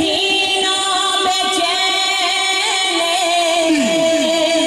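Men's voices singing long held notes of a naat through a public-address system, several pitches sustained together, with the notes curving downward near the end.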